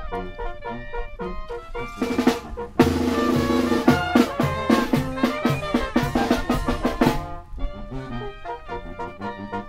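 Music led by a drum kit, with snare and bass drum hits under pitched melodic notes. It swells into a fuller, louder passage about three seconds in and thins out again near eight seconds.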